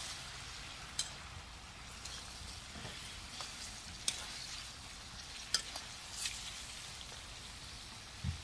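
Tuna tail cooking in sauce in a metal wok, with a steady hiss, while a metal spoon stirs and bastes and clinks sharply against the wok a few times.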